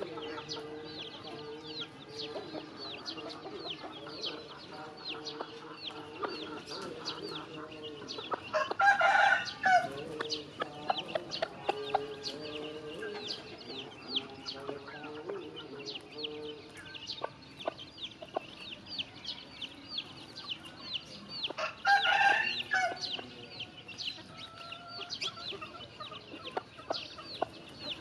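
Chicks peeping constantly in quick, high, falling chirps, with a hen's low clucking among them. Twice a rooster crows loudly, about nine seconds in and again some thirteen seconds later.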